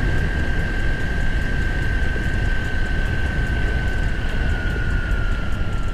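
Meepo Hurricane electric skateboard running at full throttle near its top speed: a steady high motor whine over heavy wind rumble on the microphone and wheels rolling on concrete. From about four seconds in, the whine drops slightly in pitch as the board slows.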